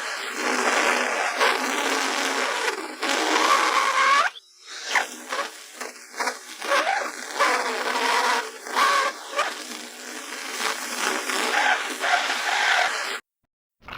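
Noises of the Noo-Noo, the Teletubbies' living vacuum cleaner: wavering, warbling sucking-machine sound effects with bending pitch, in two clips with a brief break about four seconds in.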